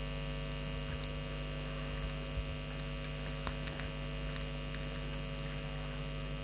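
Steady electrical mains hum: a low buzz made of several steady tones, with a few faint clicks, the clearest about two and a half seconds in.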